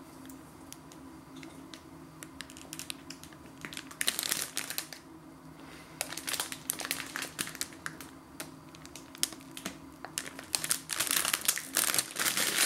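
Plastic croissant packet crinkling as it is handled and turned over, in irregular bursts that are busiest about four seconds in, around six to eight seconds, and near the end, over a faint steady low hum.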